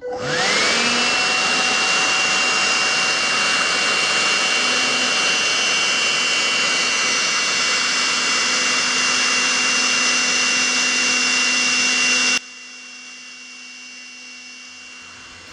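Makita CL107FDZW cordless stick vacuum switched on: the motor spins up with a rising whine and settles into a loud, steady whir with a high whine on top. About twelve seconds in it drops suddenly to a much quieter steady hum.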